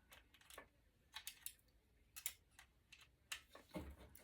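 Faint, irregular small clicks and ticks of handling a circuit board and working its metal bracket off.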